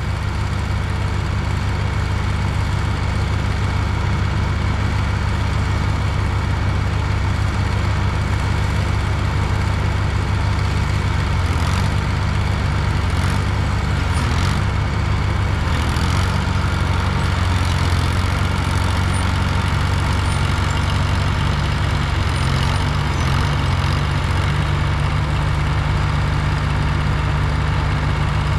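Heavy construction machine's engine running steadily at an even speed, with a few faint clicks about halfway through.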